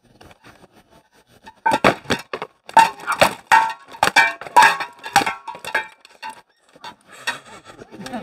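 Rattan weapons striking shields and armour in SCA armoured combat: a rapid flurry of about fifteen sharp cracks and knocks over some four seconds, some with a brief metallic ring, then a few scattered blows.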